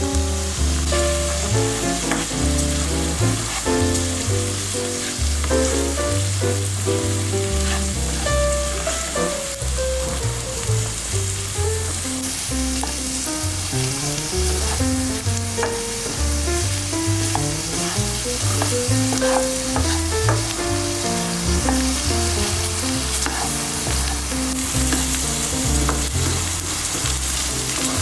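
Food frying in a pan with a steady sizzle, under background music with a melody and bass line.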